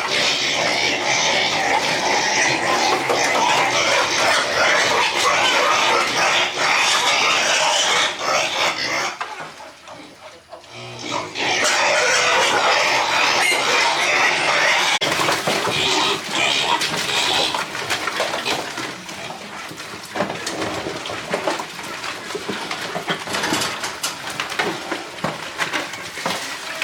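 Piglets squealing loudly and almost continuously. There is a short lull about ten seconds in, and the squealing is somewhat softer in the last third.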